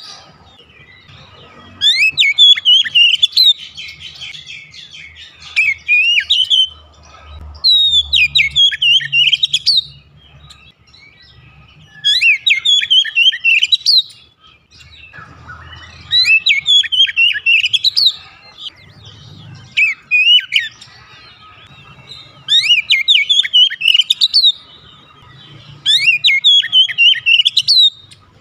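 Oriental magpie-robin (kacer) singing in repeated loud phrases of a second or two each, quick whistled notes sweeping up and down, with short pauses between phrases.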